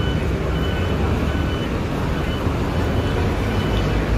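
City street traffic, a steady low rumble, with a short high electronic beep repeating about every three quarters of a second.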